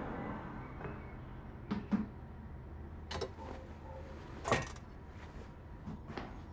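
A few scattered light knocks and clunks of a metal pouring jug being handled on a digital kitchen scale and worktop, the loudest about four and a half seconds in.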